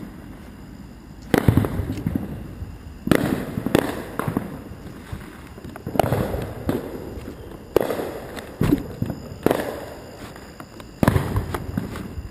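Fireworks going off in a steady series of loud bangs, about a dozen, each trailing off in a rumbling echo, one every second or two.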